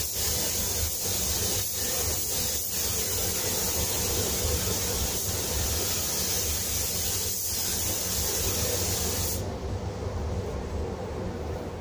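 Gravity-feed spray gun hissing as paint is sprayed onto a car body, with a few brief breaks as the trigger is let off between passes; the hiss stops about nine seconds in. A steady low hum runs underneath.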